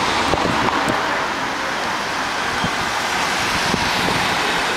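Street traffic: cars driving past through an intersection, a steady road noise, with wind rumbling on the microphone.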